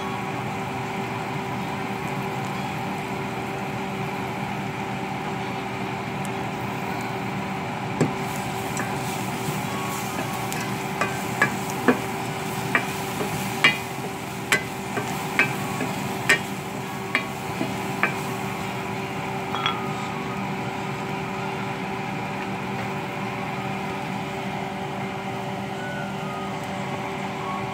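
A wooden spoon stirring diced potatoes, carrots and corn in an enamel pot, knocking sharply against the pot about a dozen times over roughly ten seconds, starting about eight seconds in. A steady hum runs underneath throughout.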